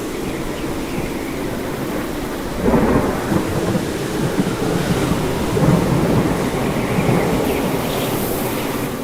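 Thunderstorm: steady rain with a low rolling thunder rumble that comes in about three seconds in and goes on for several seconds.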